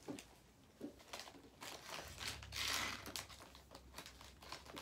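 Faint crinkling and rustling of a plastic snack wrapper being handled, with a louder rustle about two and a half seconds in.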